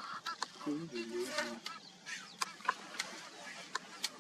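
Wild birds calling around a swamp edge: many short chirps and calls overlapping. A brief low voice-like sound comes in about a second in.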